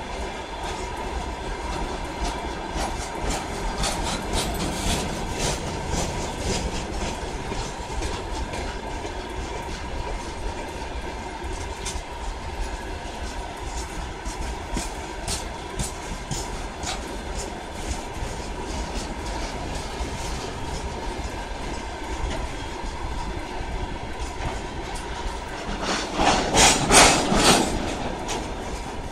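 Freight train of rail tank wagons rolling past, wheels clicking steadily over the rail joints with a continuous rumble and rattle. A louder burst of harsh wheel clatter near the end.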